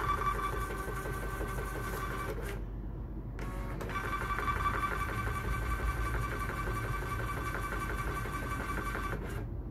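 Xprinter XP-350B thermal barcode label printer running, its motor whining steadily as it feeds and prints labels. It stops briefly about two and a half seconds in, then runs again until near the end.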